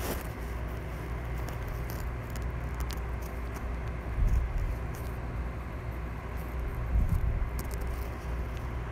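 Steady low rumble with faint ticks of fingertips tapping on a phone's touchscreen keyboard, and two louder thumps about four and seven seconds in.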